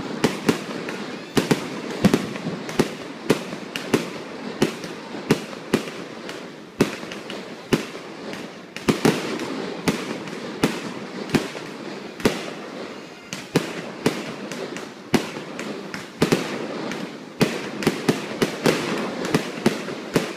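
Fireworks display: aerial shells bursting in a steady barrage of sharp bangs, about two a second, with continuous crackling between them.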